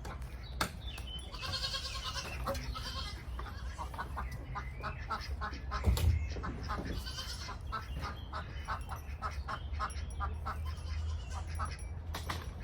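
Goats bleating: one pitched call about a second and a half in, among runs of short, quickly repeated animal calls. A single loud knock about six seconds in, over a steady low rumble.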